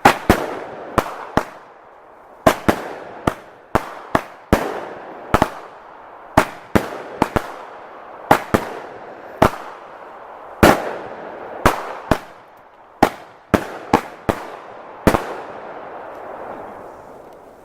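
Consumer fireworks going off: a rapid, irregular run of about two dozen sharp bangs over some fifteen seconds, each trailing off, dying away near the end.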